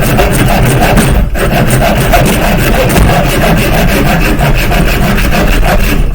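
Hand saw cutting through a wooden knife blank in quick, even back-and-forth strokes, with a brief pause about a second in.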